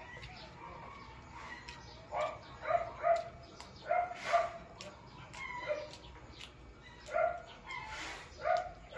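Short animal calls repeating every second or so, often in pairs, over a quiet background.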